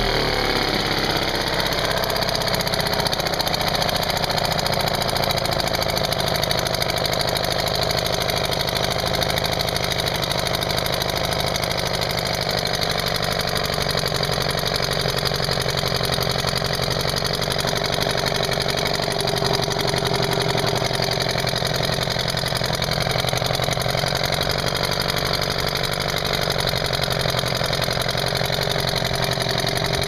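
British Seagull 40 single-cylinder two-stroke outboard motor running steadily in a test tank, its propeller churning the water. Its speed drops as the throttle is eased back about a second in, then holds even.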